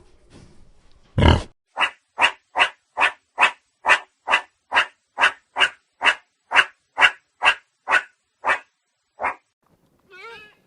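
An animal calling: one louder call about a second in, then a steady run of short, evenly spaced barking calls, a little over two a second, that stops near the end.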